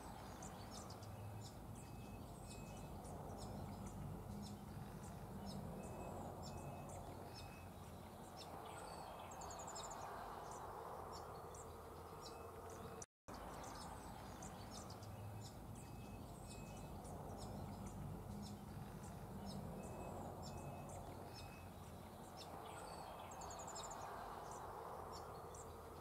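Nature ambience of many small birds chirping and calling over a steady outdoor hiss. It cuts out for a moment about halfway through, then the same stretch of chirps plays again.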